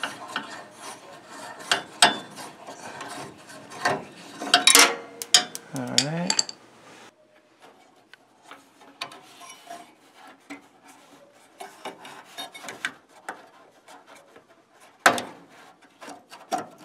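Hand-tool work on a gas furnace's hot surface igniter mount. A hex-socket screwdriver backs out the bracket screw with metal scraping and clicking, busiest in the first six seconds or so. Lighter scattered clicks follow, then a sharp click about fifteen seconds in as the igniter is handled.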